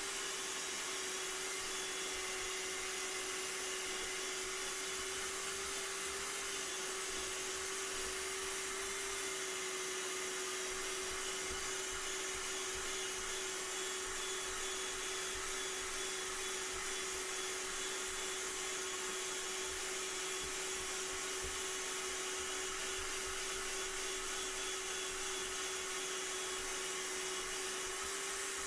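Mini shop vac running steadily, its nozzle sucking dust out of a ceiling bathroom exhaust fan housing: a constant motor hum over rushing air.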